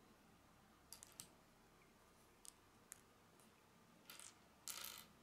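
Faint clicks of small plastic Lego bricks being handled and fitted together: a few sharp ticks, then a short rustling scrape of plastic on plastic near the end, which is the loudest sound.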